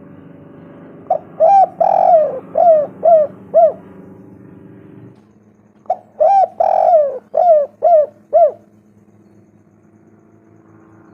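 Spotted dove cooing in two phrases about five seconds apart. Each phrase is a short note, then a longer drawn-out coo, then a few clipped coos, over a steady low hum.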